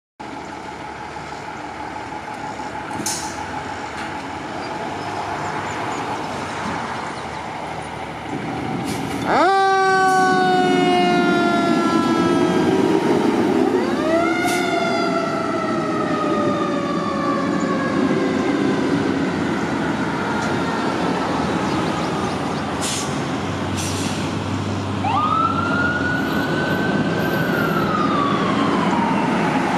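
Fire apparatus pulling out of the station. A diesel rumble gives way, about nine seconds in, to a siren that winds up sharply and slowly winds down. A second wind-up follows about five seconds later. Near the end another siren rises and wails as the ambulance leaves, with a few short sharp sounds along the way.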